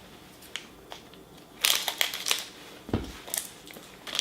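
Plastic candy bag crinkling and crackling as it is handled, in irregular bursts, with a soft thump about three seconds in.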